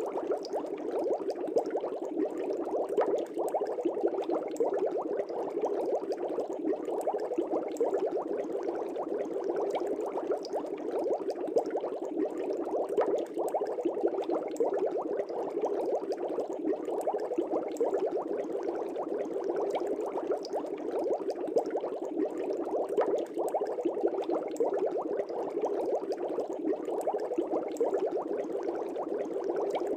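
Aquarium air bubbles rising and breaking at the water surface, a steady dense bubbling with many small pops.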